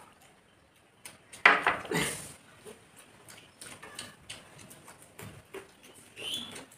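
Close-up eating noises: mouth chewing and smacking, with small clicks of fingers working rice against metal plates. Two louder mouth noises come about one and a half and two seconds in, and a shorter one near the end.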